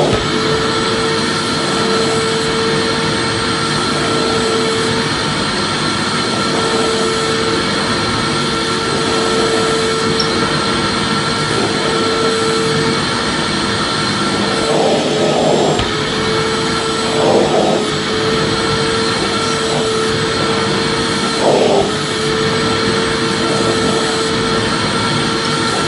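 Electric vacuum cleaner running steadily: a constant rushing noise with a fixed whine from its motor, wavering briefly a few times past the middle.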